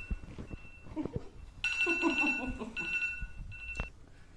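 Smartphone timer alarm going off in a repeating pattern of steady high beeps, signalling that the one-minute timer has run out. It cuts off abruptly just before four seconds in.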